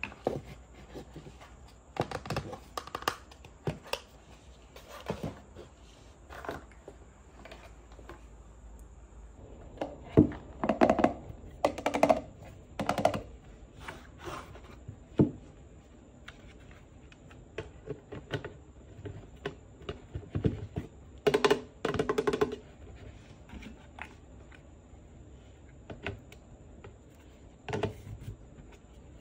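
Hard plastic toy kitchen pieces being handled: irregular clicks, taps and knocks as parts are picked up, set down and fitted together, with louder clusters of knocks about ten to thirteen seconds in and again around twenty-one seconds.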